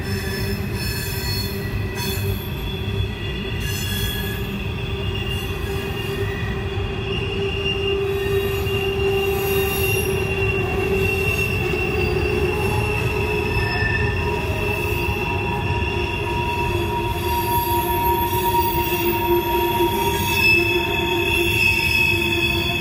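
Empty coal hopper cars rolling through a tight curve, their wheel flanges squealing against the rails in several steady, slowly shifting high tones over the low rumble of the wheels. The squeal grows slightly louder about a third of the way through.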